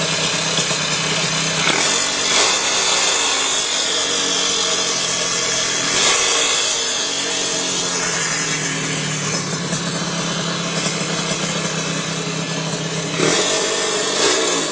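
Motorcycle engine idling steadily, revved briefly three times: about two seconds in, about six seconds in, and near the end.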